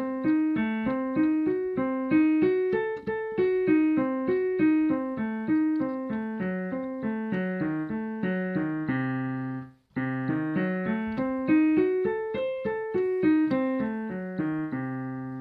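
Piano played as a practice exercise in C-sharp minor: quick arpeggio figures climbing and falling. Each run ends on a held low note, once about two-thirds of the way in, followed by a short break, and again at the end.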